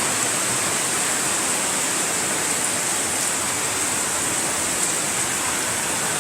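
Heavy rain with rainwater running off, a steady rushing hiss.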